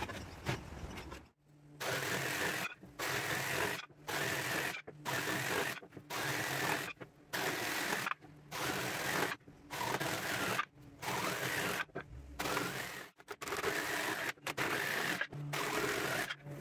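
Cordless jigsaw cutting timber fence palings to length, running in about a dozen short spells of roughly a second each with sharp breaks between them.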